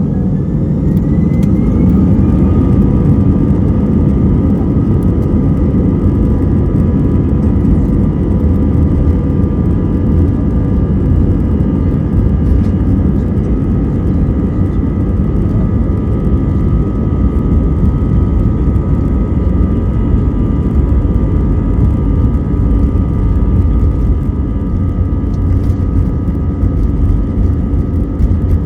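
Airbus A320-214's CFM56 jet engines heard from inside the cabin, spooling up to takeoff thrust: a whine rising over the first few seconds, then a loud steady rumble with held engine tones.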